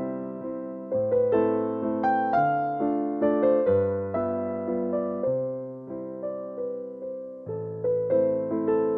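Piano music: soft chords struck and left to fade, a new chord every second or so.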